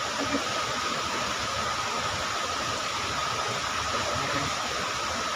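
Steady rushing of river water, an even hiss with no breaks, with a thin steady high tone above it.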